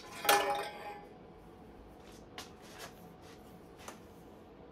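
Stainless steel exhaust pipe clinking against the motorcycle as it is handled: one sharp metallic clink that rings briefly a moment in, then a few light taps.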